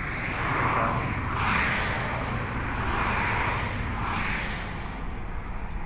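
Cars and pickups passing on a highway: tyre and road noise swelling and fading several times over a steady low rumble.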